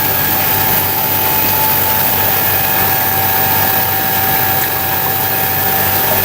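Ozone fruit-and-vegetable washing machine running, its wash water bubbling steadily, with a constant machine hum and a steady whine.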